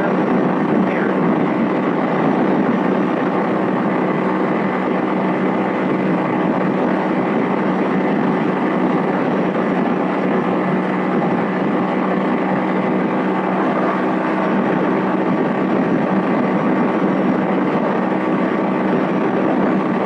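Vitacci XMT 250 motorcycle engine running at a steady throttle at highway speed, about 70 mph, as an unbroken drone with rushing wind and road noise.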